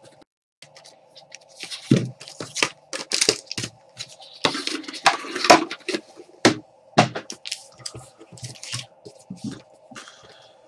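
A box of 2014-15 Panini Court Kings basketball cards being opened by hand: its plastic and foil wrapping torn and crinkled, with sharp crackles and knocks of cardboard packaging, busiest a little past the middle. A steady faint hum runs underneath.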